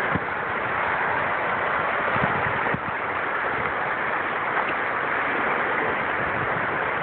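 Steady rushing and churning of floodwater spilling over a concrete wall into whitewater, with wind bumping the microphone now and then.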